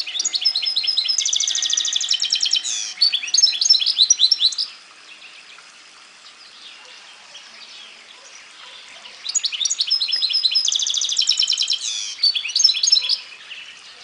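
A goldfinch × canary hybrid (mule) singing two rapid, twittering song phrases of about four to five seconds each, each with a fast trill in the middle. The phrases are separated by a pause of about four seconds.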